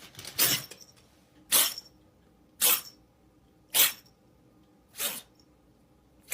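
A cat sneezing over and over, five sharp sneezes at an even pace of about one a second.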